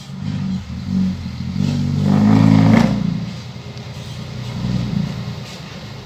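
Dump truck's diesel engine, its sound modified, revving as the truck drives. It rises to its loudest about two to three seconds in, then eases off.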